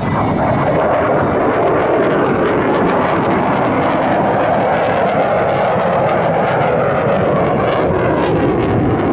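F-22 Raptor fighter jet flying past, its twin Pratt & Whitney F119 afterburning turbofans a loud, steady rushing noise.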